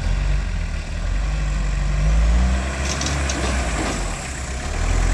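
Off-road 4x4's engine revving hard under load on a steep rock climb, swelling twice, with a few sharp knocks about three seconds in.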